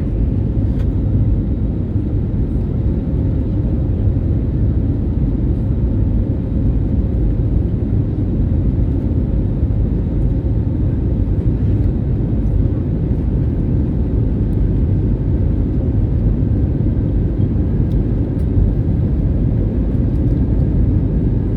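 Steady cabin noise of an Airbus A320neo climbing out after takeoff: the rush of air and its CFM LEAP-1A turbofans, heavy in the low end, with a faint steady tone above it.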